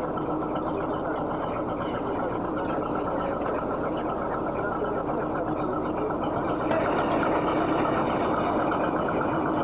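A motor boat's engine running steadily in a dense, even drone; it grows a little louder about seven seconds in.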